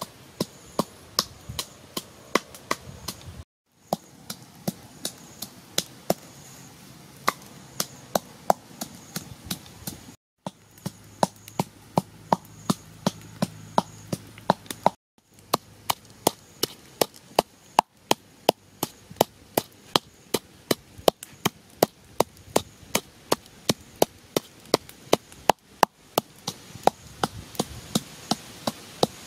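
Pestle pounding in a small mortar, a steady run of sharp knocks at about three strokes a second, with a few brief breaks.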